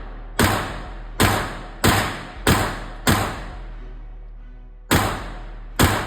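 Seven 9mm pistol shots, each followed by a short echo: five about two-thirds of a second apart, a pause of nearly two seconds, then two more.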